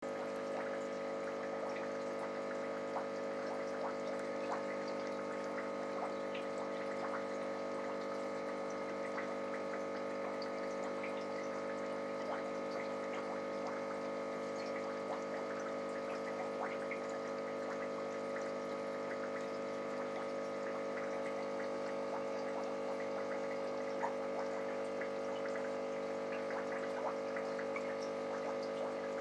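Aquarium pump humming steadily, with faint water trickling and small ticks.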